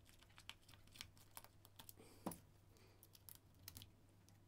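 Faint, irregular small clicks and ticks of a small screwdriver and fingers working screws out of a Loona robot pet's plastic housing, with one sharper click about two seconds in.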